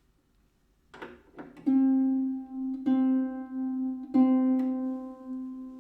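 A Celtic harp's C string plucked three times, each note ringing on, while it is being tuned down below pitch. A couple of soft clicks come just before the first pluck.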